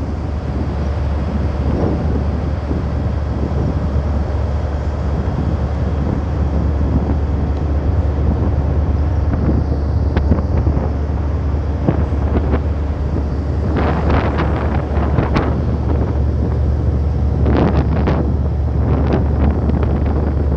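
Boat engine running steadily with a low drone, and wind blowing on the microphone. Two louder rushing surges come about two thirds of the way through and again near the end.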